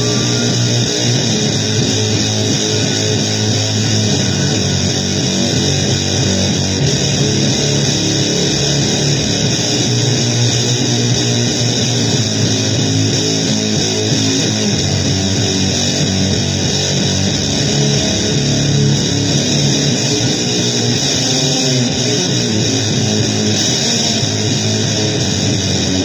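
Blues-based noise music on heavily distorted guitar: a loud, dense wall of sound that never breaks, with shifting low notes beneath a steady hiss.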